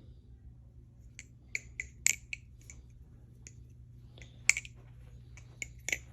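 Aluminum barebones balisong clone being handled and flipped, its metal handles and blade clicking and clacking in irregular sharp ticks, the loudest about four and a half seconds in.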